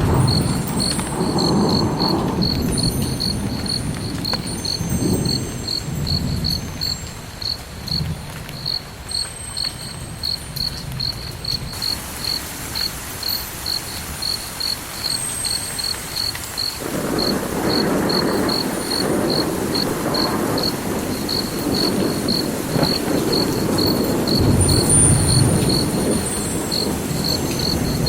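A cricket chirping steadily, short high chirps at about two and a half a second, over a low rumble that fades a few seconds in and swells back a little past halfway.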